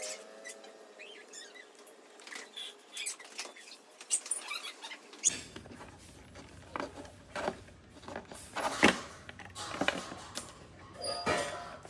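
Scattered light clicks and taps from hands handling multimeter probes and computer power-cable connectors on a graphics card and motherboard.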